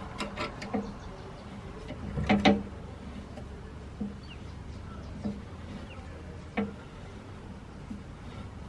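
Metal clicks and knocks from a C-clamp being tightened to press a brass bushing through a socket into a leaf-spring eye. A louder clatter comes about two and a half seconds in, then single clicks about every second and a half.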